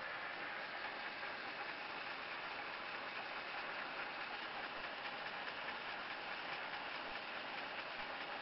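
Cigarette-filter-making machine running steadily, an even mechanical noise with no pauses.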